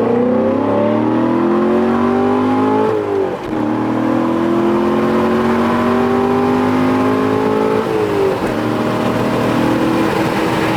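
Corvette V8 with a newly fitted X-pipe exhaust accelerating hard at full throttle, its engine note climbing through the gears with two upshifts, about three and eight seconds in.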